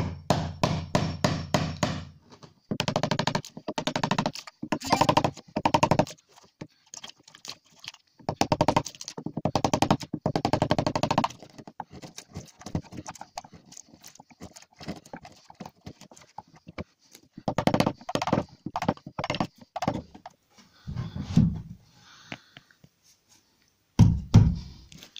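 Wood chisel being struck in quick runs of sharp knocks, chopping a notch out of the corner of a softwood frame, with lighter taps between the runs. A heavier low thump near the end.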